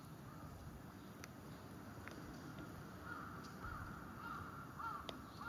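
A crow cawing repeatedly, a series of short calls starting about halfway through, over a steady low outdoor background rumble.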